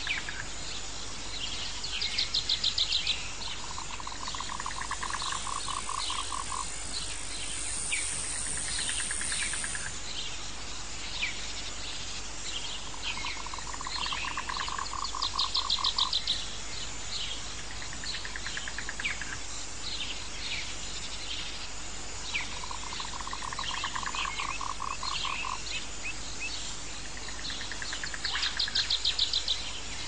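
Jungle ambience: a steady high insect drone under many short bird chirps, with trains of rapid pulsed calls, a high one and a lower one, that come back about every 13 seconds, as in a looped recording. The high pulsed trains are the loudest events.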